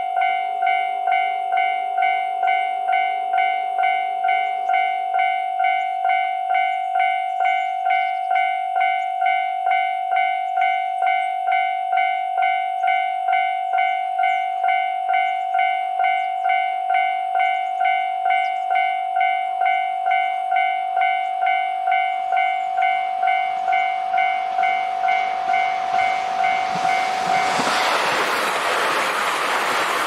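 Japanese level-crossing warning bell ringing steadily at about two strokes a second. Over the last several seconds the rushing noise of a JR Hokkaido KiHa 261 series diesel express train grows, and the train passes over the crossing at speed near the end, covering the bell.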